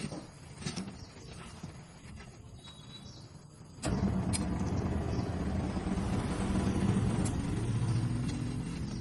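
A few light clicks and taps, then about four seconds in a motor vehicle engine comes on suddenly and runs with a steady low rumble.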